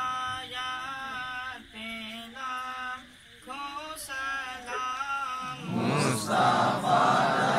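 Islamic devotional chanting: a single voice sings long, held melodic phrases with short pauses. About six seconds in, a group of voices joins in together, louder.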